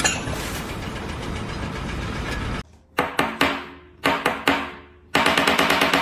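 Steady noise, then after a cut a run of about seven sharp knocks, each ringing away, followed by a dense, fast-rattling stretch that cuts off near the end.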